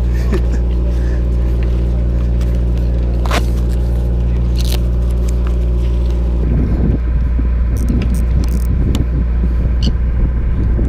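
Sportfishing boat's engine running steadily, a loud low hum. About two-thirds in a rougher, uneven rumble rises over it, and a few sharp clicks come through.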